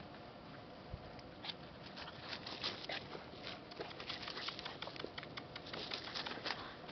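Eight-week-old puppies scrabbling and rustling through dry grass: an irregular run of soft crackles and ticks, busier from about two seconds in.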